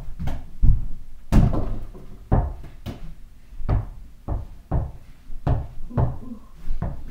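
A small rubber basketball being dribbled on the floor: a run of about a dozen dull thuds, irregularly spaced, one to two a second.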